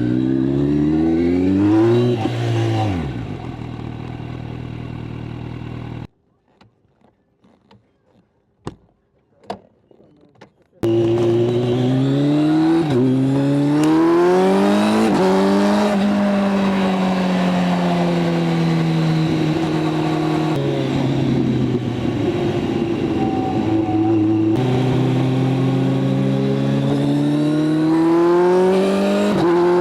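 Kawasaki motorcycle engine at speed, its pitch climbing and then stepping down at each gear change. About six seconds in, the sound drops out to near silence with a few faint clicks for about five seconds. The engine then comes back, revving up through several more shifts.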